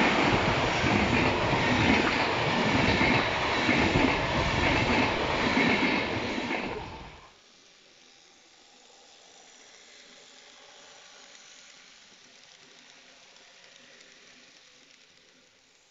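Passenger coaches of a full-size InterCity train passing close by: a loud rumble and clatter of wheels on the rails. About seven seconds in it gives way abruptly to a faint, steady whirr of a Z-scale model train running on its track.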